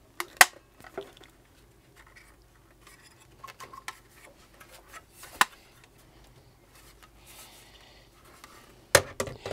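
Sharp clicks and light clatter of a floppy drive's metal case and plastic mounting rails being handled and slid into a computer's drive bay. The loudest click comes a little under half a second in, another about five and a half seconds in, and a cluster of knocks near the end.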